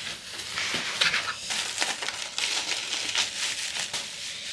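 Packaging rustling and crinkling as a parcel is opened by hand: a steady run of scratchy crackles and tearing noises.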